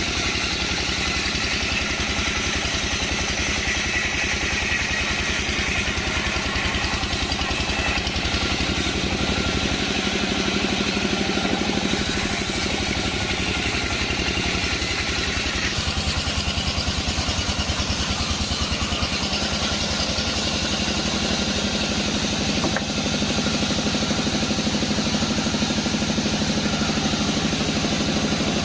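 Sawmill machinery running: a steady engine drone with a rapid, even beat, under a high hiss that changes about twelve and sixteen seconds in.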